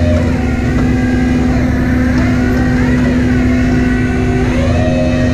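Tow truck engine running under a steady hum, its pitch rising and falling a few times as it revs.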